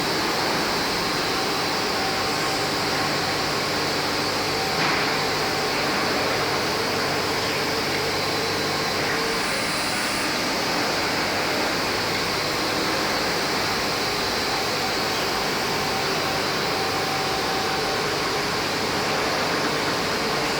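Two-head wide-belt panel sanding machine running steadily, with an even whirring hiss and a low hum. A single click comes about five seconds in.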